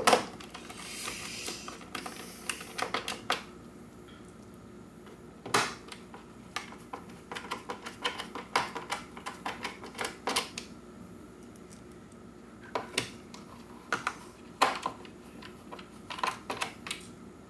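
Small screws clicking and tapping against the plastic cover of an iRobot Roomba 700 series as they are picked up and set into its screw holes: scattered light clicks, some in quick runs, with a brief rustle in the first few seconds.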